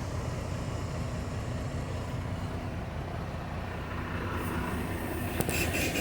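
Semi-truck diesel engine idling with a steady low rumble, and a single sharp click shortly before the end.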